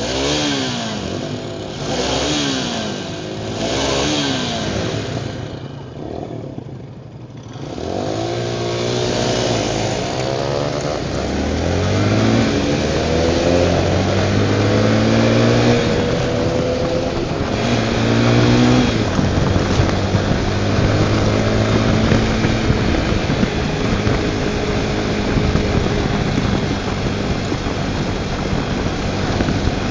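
Tornado 250 motorcycle's single-cylinder engine blipped up and down three times, then pulling away and accelerating up through the gears with a shift about twelve seconds in and another about seventeen seconds in, settling to a steady cruise for the last ten seconds.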